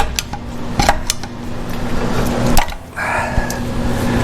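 Hand tools clinking and knocking against metal engine parts, with a few sharp knocks over a steady low hum.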